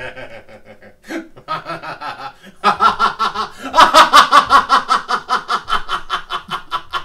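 A man laughing hard. After a few soft chuckles, a long run of loud, rapid "ha-ha-ha" laughter starts about three seconds in, peaks a second later and tails off near the end.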